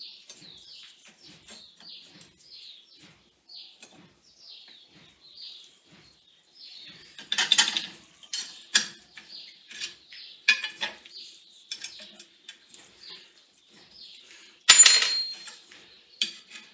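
Metal parts clinking and knocking as they are handled in a steel jig, with a loud ringing clank about fifteen seconds in. Before the clinks, a run of short, high chirps repeats about twice a second.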